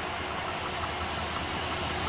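Diesel locomotive approaching on the track: a steady low engine hum under an even rushing noise, growing slightly louder.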